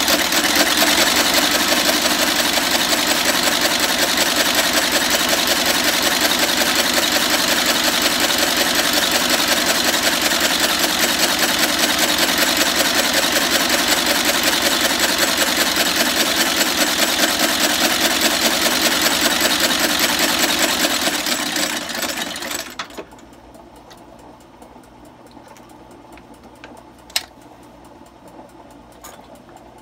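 Outsole stitching machine running, a rapid, even clatter as it sews a leather sole to a shoe, which stops abruptly about three-quarters of the way through. A single sharp click follows a few seconds later.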